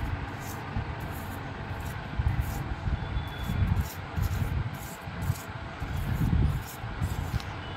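Small grass-bristle broom brushing across a paper-lined floor in quick repeated strokes, about two or three a second, with low bumps in between.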